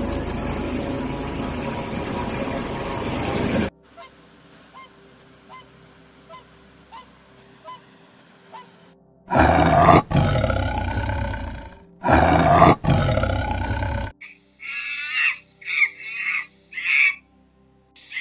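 A steady rushing noise for the first few seconds, then two long, loud tiger roars starting about nine seconds in, the loudest sounds here. Near the end comes a run of short, high monkey calls.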